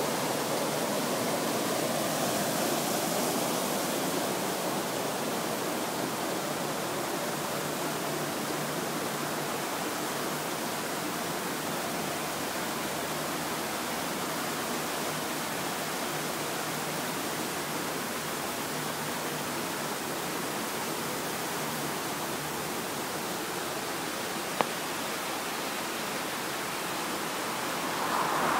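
Water rushing into a canal lock through the open paddles of the upstream gate as the lock fills: a steady roar that eases off slightly over time as the barge rises. A single sharp click comes near the end.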